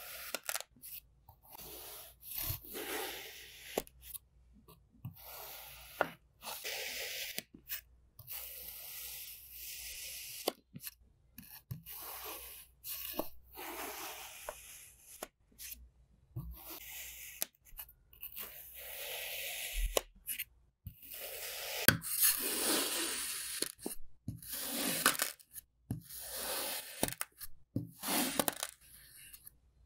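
Knife blade slicing through moulded kinetic sand: a long series of short gritty, scraping hisses, one per cut, with brief pauses between and an occasional sharp click.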